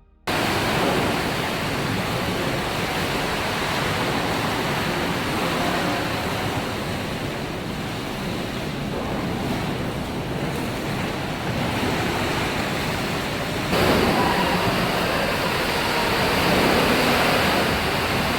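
Water in a cruise ship's swimming pool sloshing and surging as the ship rolls in rough seas, a steady rushing that gets louder about fourteen seconds in. Pool water raging like this is the sign of very big waves outside.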